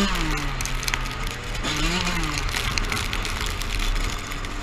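Small two-stroke dirt bike engine revving and easing off twice, with a lot of crackling noise over it.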